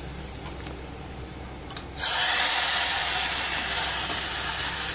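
Hot tempering oil with mustard seeds, dried red chillies and curry leaves hits the cooked banana-flower kootu about two seconds in. It sets off a sudden, loud, steady sizzle.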